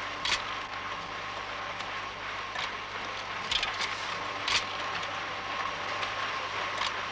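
Automatic book-case making machine running with a steady mechanical noise and a constant hum, with a few scattered clicks.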